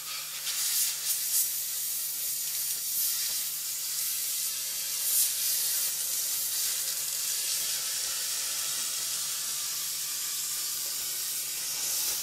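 Dry-vapour steamer nozzle hissing steadily as low-moisture steam is jetted into the crevices of a bed frame to kill bed bugs, over a faint steady low hum.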